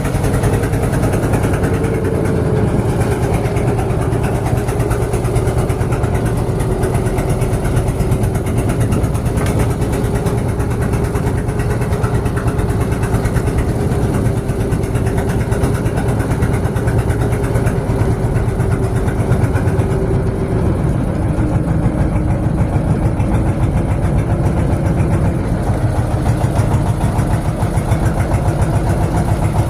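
An engine running steadily with a constant drone, its pitch dropping slightly about two-thirds of the way through.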